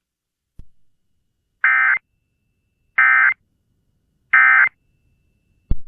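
Emergency Alert System end-of-message data bursts: three short, identical buzzy digital tones about a second and a half apart, the signal that closes an EAS alert. A faint click comes before them and a sharp click near the end.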